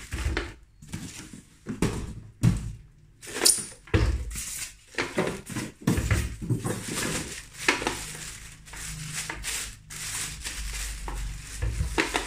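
Clear plastic bag crinkling and polystyrene foam packing rubbing as a boxed welding machine is unwrapped by hand. The rustles come irregularly, with a few dull thumps of the machine being handled.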